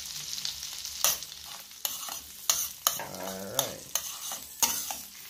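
Minced garlic, ginger and pepper sizzling in melted butter in a metal pot, with a steady hiss, while a metal spoon stirs the sauce and clicks against the pot several times.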